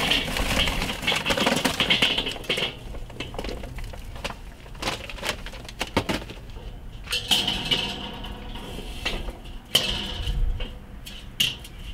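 Instant-light charcoal briquettes pour from the bag into the steel bowl of a Weber kettle grill for a couple of seconds. After that they clink and clatter now and then as they are spread by hand.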